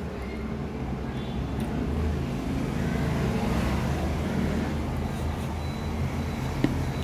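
Steady low mechanical rumble, like a vehicle engine running, that swells over the middle seconds, with one sharp click near the end.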